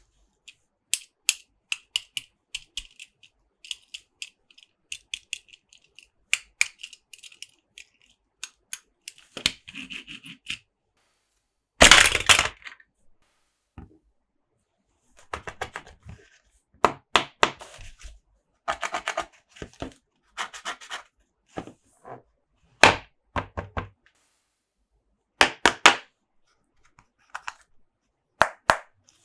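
Close-up hands handling plastic Monster Jam toy parts and packaging: irregular sharp clicks and taps, with a louder crackling burst about twelve seconds in.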